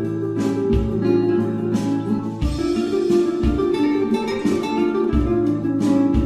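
Background music led by acoustic guitar, plucked and strummed notes with an occasional low thump.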